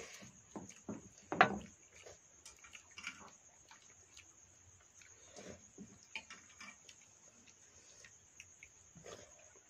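Eating sounds: hands scooping and squelching rice in water from steel bowls, chewing and lip smacking, with scattered small clicks and one louder sharp sound about a second and a half in. A steady high-pitched cricket trill sits behind it.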